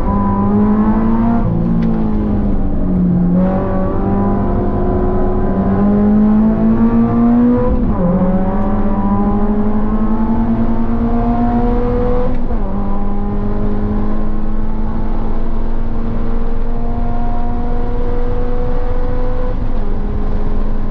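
A 2023 Subaru BRZ's 2.4-litre flat-four with an aftermarket header, at full throttle and high revs, heard from inside the cabin. Its note wavers briefly near the start, then climbs steadily and drops sharply at upshifts about eight and twelve and a half seconds in, rising again more slowly toward the end.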